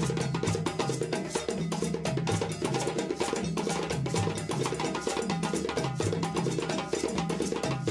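Background music with fast, dense percussion hits over a stepping bass line.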